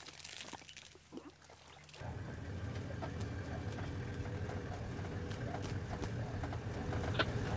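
Quiet rustling for about two seconds, then an open safari vehicle's engine starts to be heard suddenly, running steadily as it drives over grass, with a few rattles and knocks from the body.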